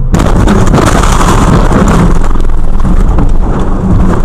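Car collision heard through a dashcam: a sudden loud crash just after the start, then several seconds of loud, harsh noise with many clicks and knocks as the impact runs on.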